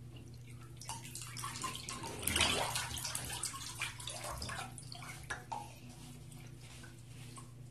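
Bath water sloshing and splashing as a person stands up in a filled bathtub, with water dripping and trickling off her body and wet clothes back into the tub; the splashing is loudest a little over two seconds in.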